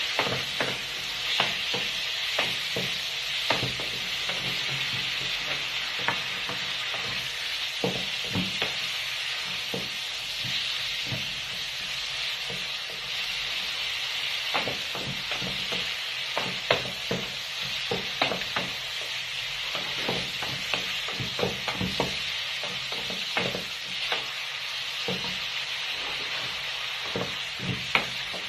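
Crayfish stir-frying in hot oil in a pan: a steady sizzle, with a spatula scraping and knocking against the pan at irregular moments as they are tossed.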